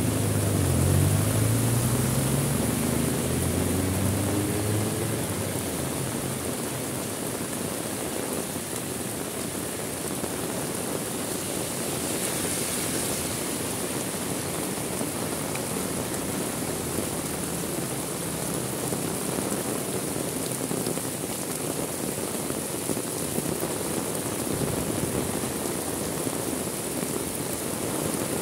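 Heavy rain falling steadily, an even hiss. In the first few seconds a passing motor vehicle's engine sounds under it, its pitch shifting, and fades out.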